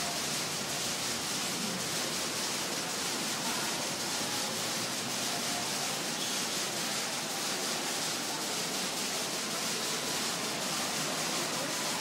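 Steady hiss of water drops falling from a digital water-curtain fountain and splashing into its basin.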